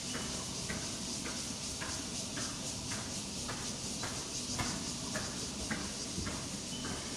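A ridden horse's hoofbeats on the ground in a steady, even rhythm, a little under two beats a second, over a constant high hiss.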